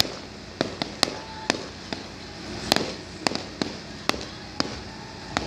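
Aerial fireworks bursting in the sky: about ten sharp bangs at irregular intervals, the loudest near the middle.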